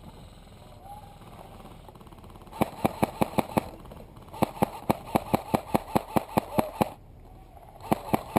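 Airsoft rifle firing rapid strings of shots, about six or seven a second: a short string about two and a half seconds in, a longer one of about fifteen shots from about four and a half seconds, and another starting near the end.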